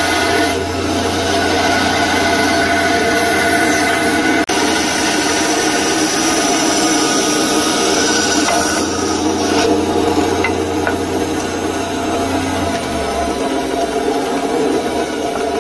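Bandsaw running and cutting a wooden knife-handle blank to shape, the blade sawing through the wood over a steady motor hum.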